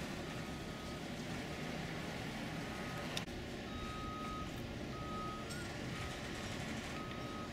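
A vehicle's reversing alarm beeping at an even pace, about one beep a second, over a steady rushing background noise. A single sharp click about three seconds in.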